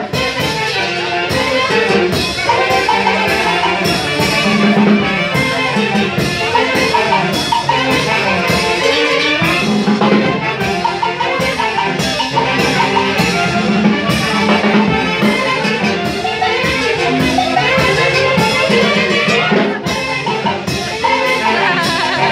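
Brass band playing dance music, trumpets and trombones over a steady drum beat.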